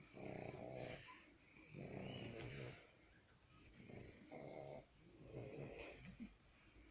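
Soft snoring in a slow rhythm: about four snores, each lasting about a second.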